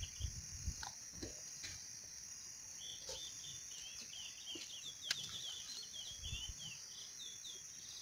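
A small bird twittering in a quick run of short chirps over a steady high insect drone, with a few faint knocks and a sharp click about five seconds in.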